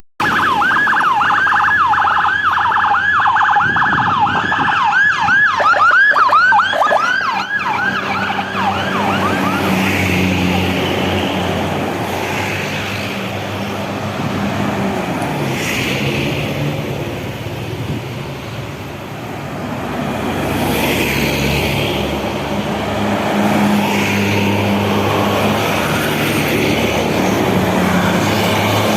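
An escort siren sounding a fast rising-and-falling yelp, which breaks off about nine seconds in. A steady low drone of passing heavy vehicles follows.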